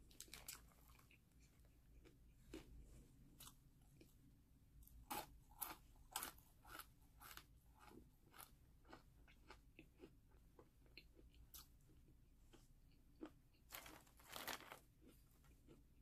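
Quiet, close-up crunching of a crisp snack being bitten and chewed, an irregular run of crunches. It is densest about five seconds in and again near the end.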